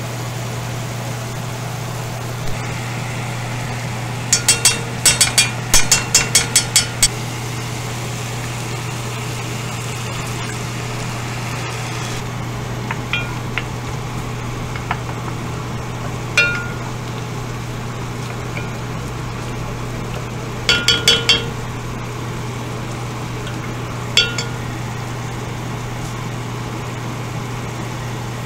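Spoon clinking against the rim of a cooking pot and ingredient containers, with bright ringing taps: a quick run of about ten, then scattered single taps and a short burst of four later. A steady low hum runs underneath.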